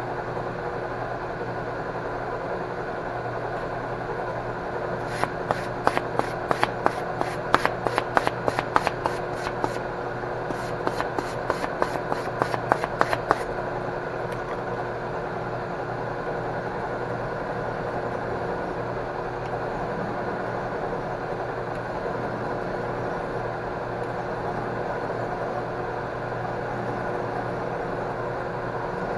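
Metal lathe running steadily with its spindle turning, a constant mechanical hum. Between about five and thirteen seconds in, with a short break near ten seconds, a hand file makes quick scratchy strokes, about three a second.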